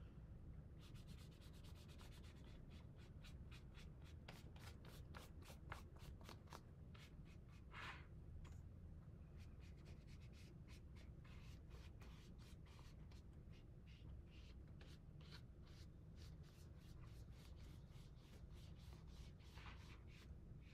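Paintbrush strokes on a paper plate: a faint, steady run of quick brushing strokes as paint is spread over the plate.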